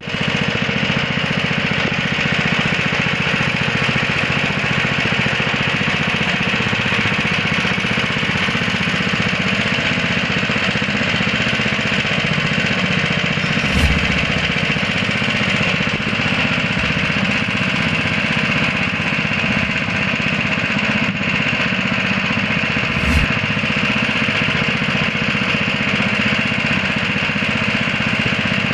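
Pepper-hulling machine running steadily with a constant engine-like drone, with two brief knocks, one about halfway through and one later on.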